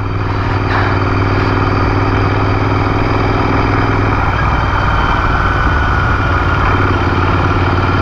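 Motorcycle engine running steadily at low road speed, with a wash of road and wind noise; the engine note changes briefly about four seconds in, as with easing the throttle or a gear change.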